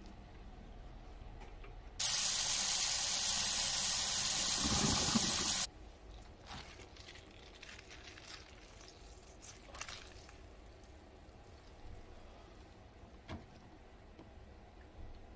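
Tap water running onto boiled cabbage in a plastic colander, switched on about two seconds in and off abruptly a few seconds later, cooling the cabbage. Faint rustles and soft clicks follow as the wet cabbage is handled.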